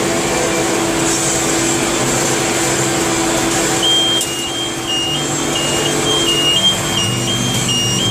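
Tractor and hay baler running steadily. About four seconds in, a high electronic alarm starts beeping in two alternating tones, switching pitch roughly every half second.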